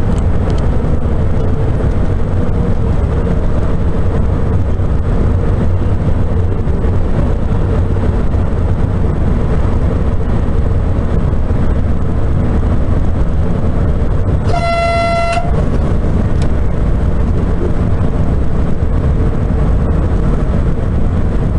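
Steady running noise inside the driver's cab of a Sapsan (Siemens Velaro RUS) high-speed train moving at speed: a low rumble with a faint steady hum. About fourteen seconds in, a single high-pitched tone sounds for about a second.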